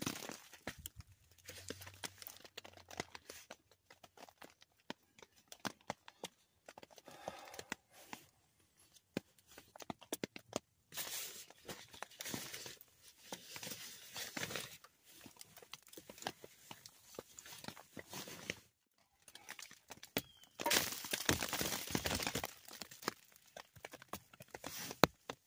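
Rustling and crinkling of fabric and camping gear being folded and packed up inside a tent, with scattered clicks and knocks. A longer stretch of rustling comes about twenty seconds in.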